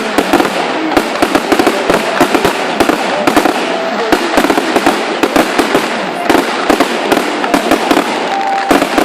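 Fireworks display going off, a dense, unbroken run of sharp bangs and crackling reports, several every second.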